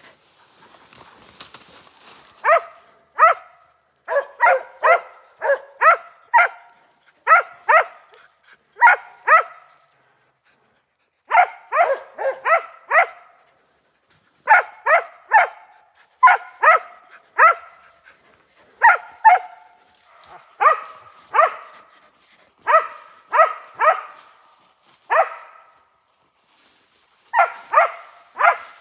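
West Siberian Laika barking at a bear it has treed: sharp barks in quick runs of two to five, with short pauses between.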